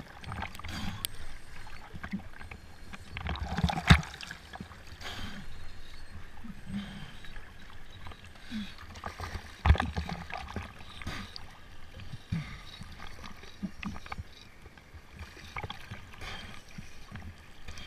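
Water splashing and sloshing around a kiteboard on the water, with occasional sharp knocks. The sharpest knocks come about 4 and 10 seconds in.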